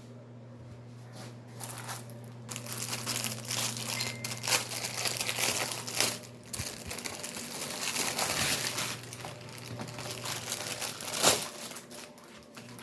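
Thin plastic packaging of a pair of inflatable swimming arm floats crinkling and rustling as it is handled and unwrapped, with a few sharper crackles, the loudest near the end.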